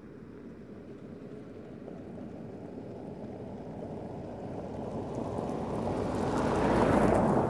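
Two Toyota Land Cruiser Prados driving up on a gravel road: tyres rumbling on the gravel and engines running, a steady noise that grows louder and brighter as they near, loudest near the end as they pass close.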